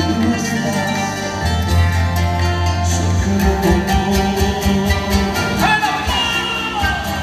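Live Andean folk band playing: strummed charangos over bass and drums, with panpipes played alongside.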